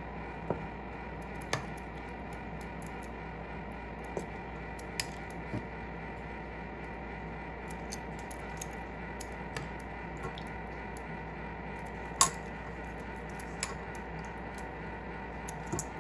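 Marinated chicken pieces being placed into a pan: scattered soft wet squishes and small clicks and clinks, with one sharper clink about twelve seconds in, over a steady background hum.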